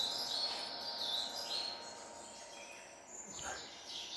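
Birds chirping and calling, played back from the soundtrack of a 4K nature video, with one falling call about three and a half seconds in.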